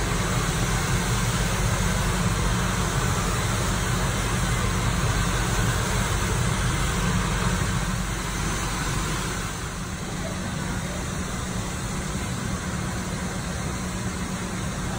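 Several hair dryers running at once, a steady rushing noise that drops a little about ten seconds in.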